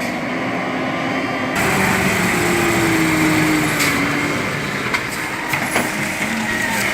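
An engine running steadily, with an abrupt change in the sound about one and a half seconds in, and a few sharp clicks in the second half.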